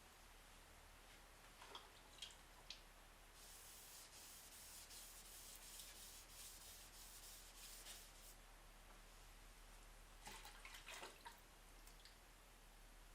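Faint hand block sanding on a car body panel: a few light taps, then several seconds of repeated rubbing strokes, and a short flurry of scrapes near the end.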